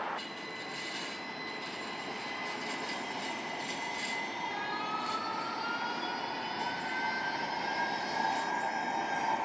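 Low-floor electric streetcar approaching, with a whine from its traction motors over a steady wash of running noise. The whine rises slowly in pitch from about halfway through as the car picks up speed.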